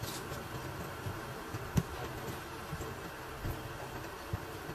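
Steady low engine hum, with a few sharp knocks from work on a removed truck tire, the loudest a little under two seconds in.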